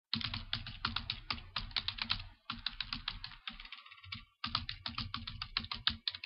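Rapid typing: fast key clicks at roughly eight a second, in three runs with short pauses about two and a half and four and a half seconds in.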